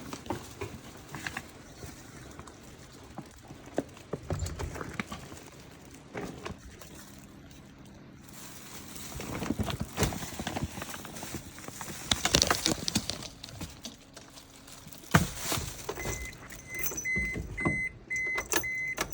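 Scattered clicks and knocks with a jingle of keys as someone handles things in and around a kei truck. A high electronic beeping, like a vehicle warning chime, pulses for the last few seconds.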